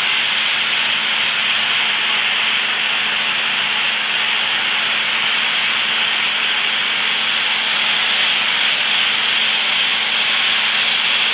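Homemade compressed-air sandblasting nozzle blasting fine sieved sand onto a turbine rotor's blades to strip their coating: a loud, steady hiss of air and sand over a faint steady hum.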